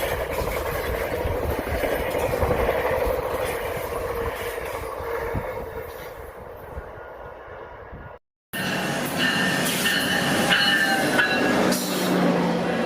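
GO Transit commuter train running on the rails, its rumble slowly fading over about eight seconds. After an abrupt cut, a train is heard again with high squealing tones over the rail noise.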